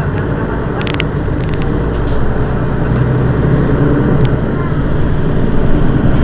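Mercedes-Benz Citaro city bus's rear-mounted diesel engine running at a standstill, a steady low hum that slowly grows louder, with a few sharp clicks.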